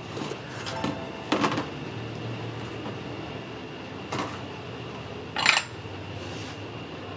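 A few separate clinks and knocks of kitchen dishes and utensils, three in all, the loudest a little past five seconds in, over a faint steady hum.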